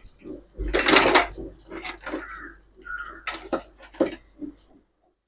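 Metal pots and cooking utensils clattering and knocking together, a handful of separate clanks with the loudest, a longer noisy clatter, about a second in.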